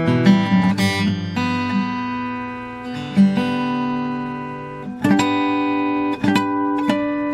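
Morris W20 acoustic guitar played solo. A quick run of picked notes opens, then chords are struck and left to ring for a couple of seconds each, with a fresh chord about five seconds in and a few more plucked notes near the end.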